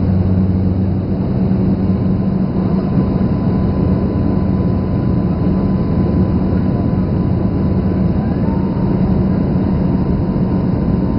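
Airliner cabin noise in flight: the steady rushing drone of the wing-mounted turbofan jet engines and airflow, heard through the fuselage, with a constant low hum and a faint thin whine above it.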